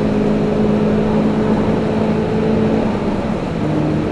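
Toyota Celica VVTi GT engine running under way, heard from inside the cabin over road and wind noise. The engine note holds steady, then changes about three seconds in as the revs shift.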